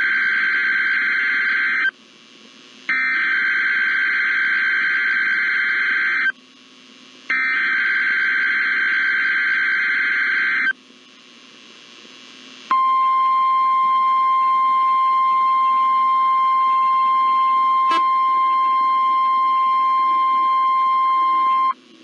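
NOAA Weather Radio emergency alert activation. First come the SAME digital header bursts: three harsh, buzzy data bursts a few seconds long with about a second's pause between them, the first already under way. After a short pause comes the steady 1050 Hz warning alarm tone, held for about nine seconds. The header encodes a severe thunderstorm watch.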